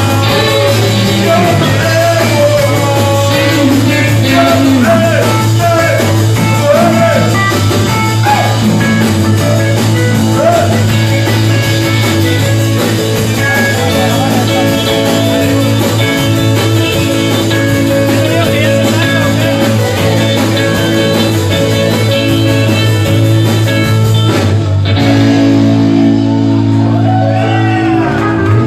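Live rock band playing, with a singer over electric guitar, bass and drums. About three-quarters of the way through, the cymbals and high end drop out, leaving held notes with a few sliding pitches.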